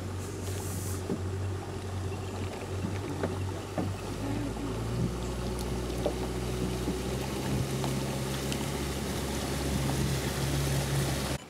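A small boat's outboard motor runs steadily under a rush of water along the hull. About four to five seconds in, the engine note climbs and gets stronger as the boat speeds up. It cuts off suddenly just before the end.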